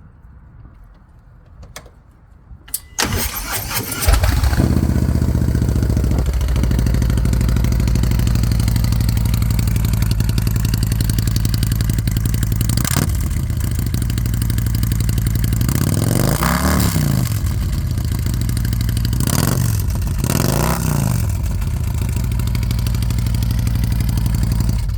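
Harley-Davidson Street Glide Special V-twin with a Woods cam and Rinehart Slimline Dual exhaust. It is cranked on its starter about three seconds in, catches, and idles. The throttle is blipped once, then revved up and down three more times before the engine shuts off near the end.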